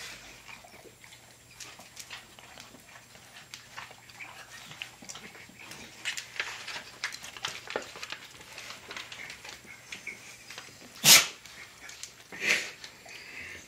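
Dogs smacking and licking their lips on sticky peanut butter: a steady run of small wet clicks. About eleven seconds in, one loud, short bark, and a quieter one a second or so later.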